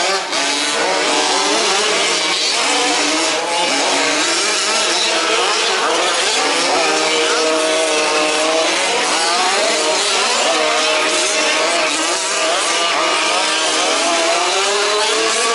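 Several 1/5th-scale RC off-road buggies' small two-stroke petrol engines racing, their overlapping whines rising and falling as they rev through the track.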